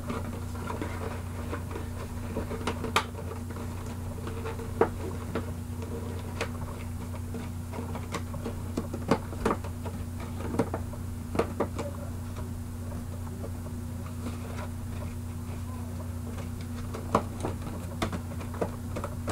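Plastic action-figure packaging handled by hand: scattered clicks and crackles of a clear plastic blister tray, over a steady low hum.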